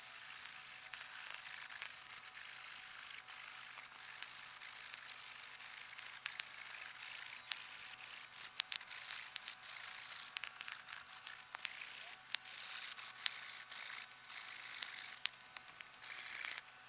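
Faint, sped-up hand sawing of a log with a folding pruning saw: a steady rasping hiss with scattered sharp clicks.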